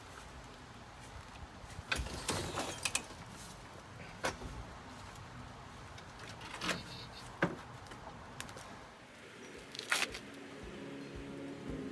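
Scattered metal clanks and knocks, about seven in all, as a pickup's front suspension parts are worked loose by hand. Background music comes in near the end.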